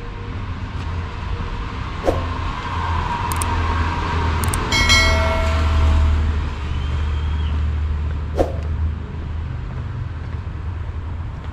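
Street traffic: a vehicle passes close, swelling over a steady low rumble to a peak about five seconds in, with a brief high-pitched tone at the peak. Two sharp clicks come, one about two seconds in and one about eight seconds in.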